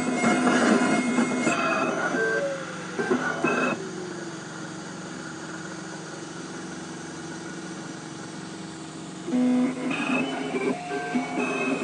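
Dental crown milling machine running: whining motors and grinding that drop to a quieter steady hum with a falling whine a few seconds in, then start up again loudly near the end.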